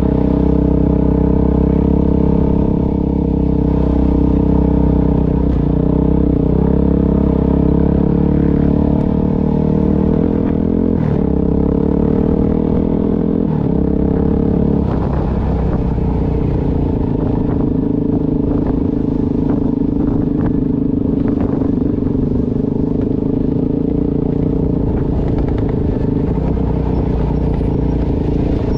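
Dirt bike engine running steadily at low trail speed, its note shifting about halfway through, with a few knocks and rattles from the rough ground.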